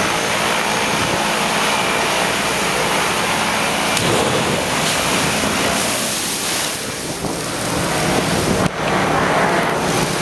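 Steady, loud rushing of a film set's artificial storm: water spraying and pouring from rain rigs, with wind noise. The rush dips briefly near the end.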